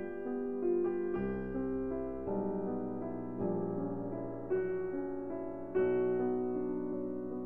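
Background piano music, a gentle melody over chords with a new note or chord struck about once a second.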